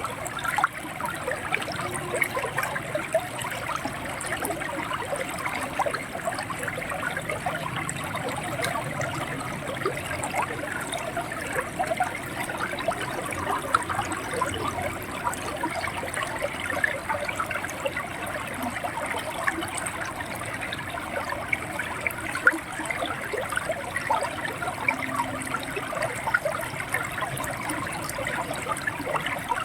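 River water running steadily, gurgling and splashing with many small overlapping splashes.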